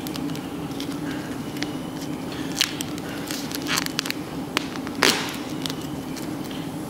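Green LaserBlast plastic sandblast film crackling and rustling as it is peeled off a painted ball to strip the mask after colour infill, with scattered sharp crackles and the loudest rustle about five seconds in.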